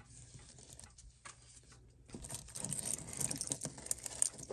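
Handling noise of two watches on stainless steel link bracelets being picked up: a few small clicks at first, then from about two seconds in the bracelets rattle and clink while fingers rustle against them.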